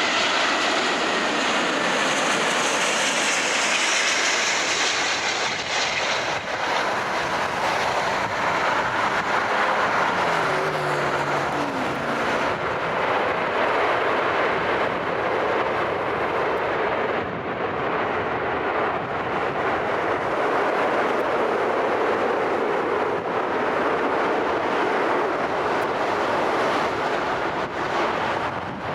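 Jet airliner engine noise: a steady rushing roar, with a short tone falling in pitch about ten seconds in.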